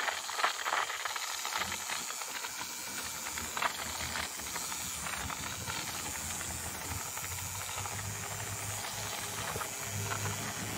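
Paint spray gun spraying, a steady hiss of air and atomised paint with a low hum underneath.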